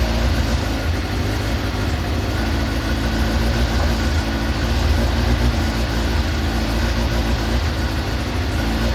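Carburetted engine idling steadily while its carburettors are being balanced against each other for synchronisation.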